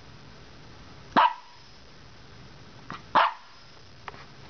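Maltese puppy barking in play: two short, sharp barks about two seconds apart, with a faint yip just before the second.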